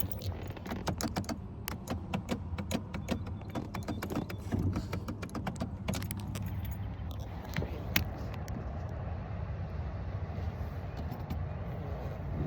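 Rapid, irregular metallic clicking and rattling for about six seconds, then a single sharp click, over a steady low hum.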